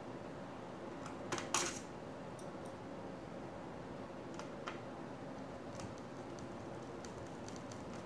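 Small metal clicks and taps of a screwdriver and screws on a laptop's metal SSD bracket as the bracket's screws are set and driven in. The sharpest is a double clink about a second and a half in, followed by a few fainter ticks.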